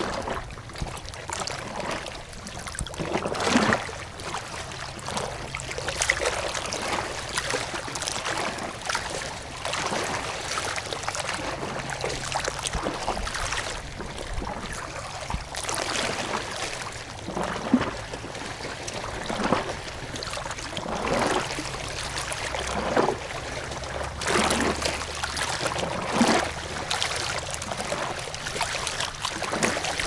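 Running water: a steady rush broken by irregular splashes and gurgles every second or two.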